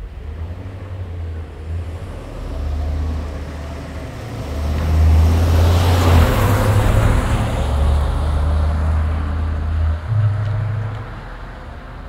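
A motor vehicle driving past on the street: a low engine drone that shifts pitch a few times under a hiss of tyres on the road. The hiss builds to its loudest about halfway through and then dies away.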